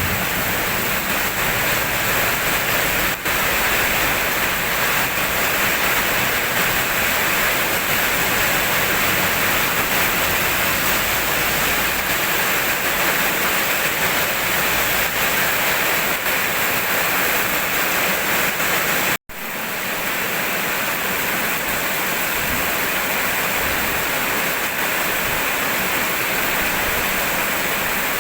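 Steady heavy rain, a dense even hiss. It cuts out for an instant about two-thirds of the way through.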